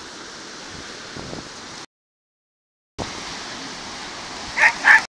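Wind on the microphone over small waves washing on the shore, a steady rush that cuts out completely for about a second before two seconds in. Near the end, two short, loud calls ring out in quick succession.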